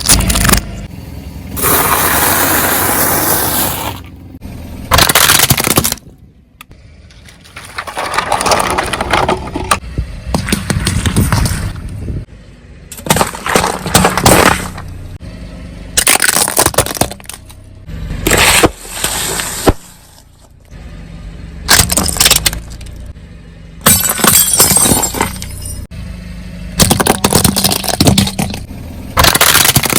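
A run of crushing and cracking sounds from objects breaking under a car's tyres, in about a dozen separate bursts of a second or two each.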